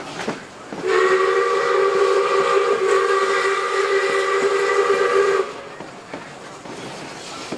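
Steam whistle of South Australian Railways 620-class locomotive 621 'Duke of Edinburgh' blowing one long steady chord of about four and a half seconds, starting about a second in, as the train nears a level crossing. The train's running noise and rail clicks are heard either side of the blast.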